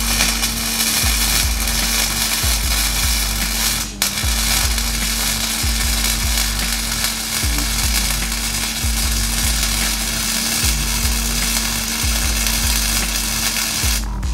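Arc welding on a steel frame tube, crackling and sizzling steadily over a low hum. The arc breaks off briefly about four seconds in, then runs on and stops just before the end.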